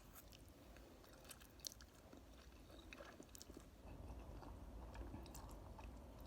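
Faint chewing with small, scattered mouth clicks of someone eating close to the microphone.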